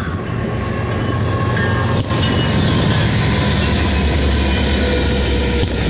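BNSF freight train passing close by, locomotive and then double-stack container cars: a loud, steady rumble and rattle of wheels on the rails, growing over the first second or two. A few thin high tones ride above it, and there is a single sharp knock about two seconds in.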